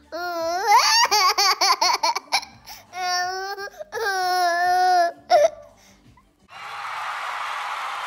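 A toddler laughing and squealing in quick high-pitched bursts, then two long held squeals about three and four seconds in. Near the end a steady rushing noise starts and carries on.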